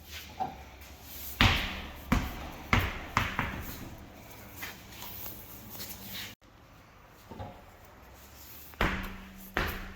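Irregular sharp knocks and clanks of tools on metal, several in quick succession in the first few seconds and more near the end, with a low steady hum underneath.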